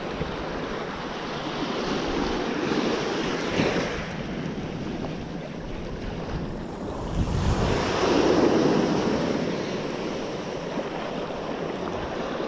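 Ocean surf washing in, with wind buffeting the microphone. The wash swells twice, the larger surge about eight seconds in.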